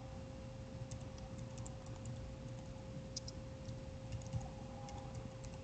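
Typing on a computer keyboard: faint, irregular key clicks over a low steady hum.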